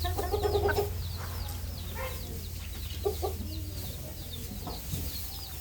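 Chickens clucking, loudest and busiest in the first second, over a steady stream of short high cheeps from many birds, with a low steady hum underneath.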